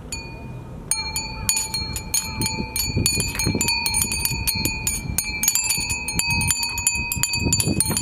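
Japanese glass wind bells (furin) ringing: a single strike at first, then from about a second in a rapid, continuous jingle of many clapper strikes on glass, each leaving a bright ringing tone. A low, gusting rumble runs underneath.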